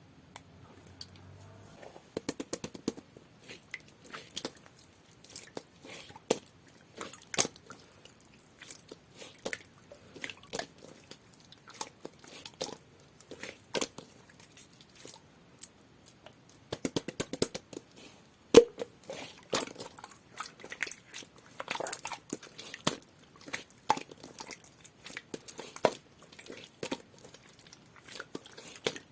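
Clear, jelly-textured slime being pressed and squeezed by hand, giving an irregular run of wet, sticky clicks and pops. It starts about two seconds in and grows denser and louder with a sharp single pop about two-thirds of the way through.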